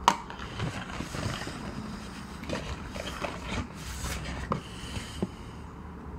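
Handling noises of small plastic jack-o'-lantern pumpkin pails being lifted and set down on a table: a sharp click at the very start, then scattered light clicks and taps.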